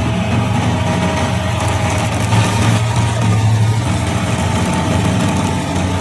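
Tractor-mounted stump grinder at work, the tractor's engine running under load as the cutter head grinds into a tree stump, a steady low drone.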